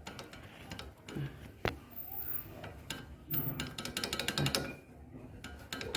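Light metal-on-metal clicks and knocks, with one sharp click about a second and a half in, as a motorcycle engine's camshaft is worked by hand in a seat that is missing its bearing.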